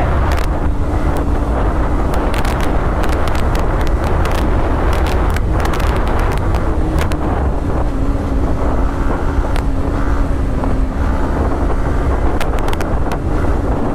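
Yamaha motorcycle at highway speed, heavy wind buffeting the rider's microphone over a steady engine hum. The engine note drops slightly about eight seconds in as the bike eases off.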